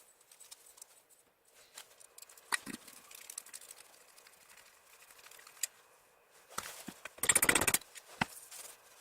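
Scattered clicks and knocks of metal engine parts being handled while pistons are fitted into the Yamaha XS650's barrels, played sped up, with a dense rattling burst about seven seconds in.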